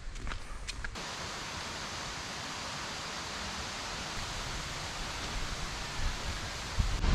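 A few footsteps on a paved path, then about a second in a steady, even hiss cuts in abruptly and holds.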